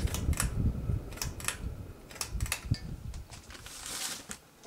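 1980s ceiling fan coasting down after being switched off, its hum fading as the blades slow, with scattered light clicks.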